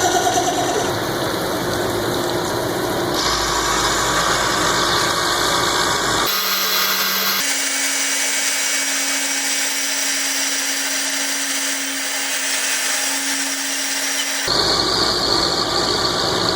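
Power tool machining a steel gear, heard as a run of short clips whose sound changes abruptly several times. The middle stretch is a steady, even hum.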